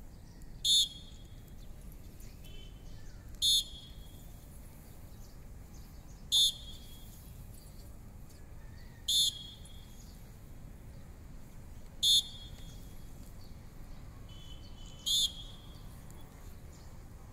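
A short, high-pitched signal tone, like a whistle or beep, sounds six times at even intervals of about three seconds. It is a cue for each step of the Surya Namaskar sequence.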